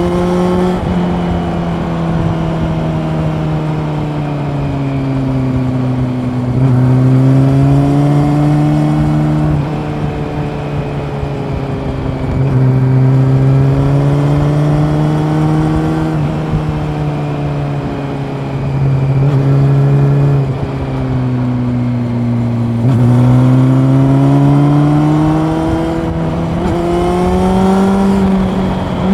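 Honda CB400 Super Four's inline-four engine running under way. Its pitch climbs and sags repeatedly as the throttle is opened and rolled off, and the sound grows louder each time the throttle opens, about four times.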